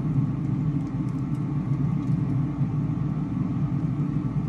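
A steady low machine rumble.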